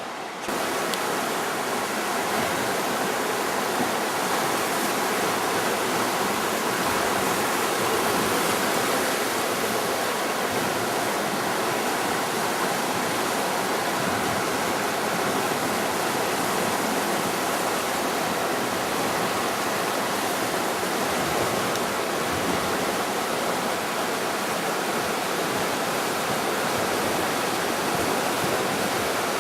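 Rushing water of a fast mountain stream, a dense steady roar that comes in suddenly just after the start.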